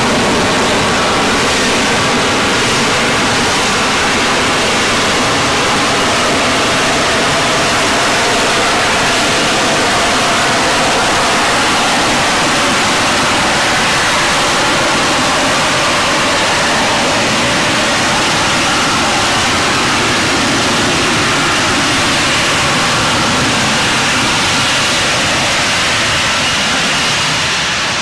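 F-35B's F135 jet engine and lift fan, a loud, steady rushing jet noise as the jet hovers in vertical-landing mode, easing slightly near the end.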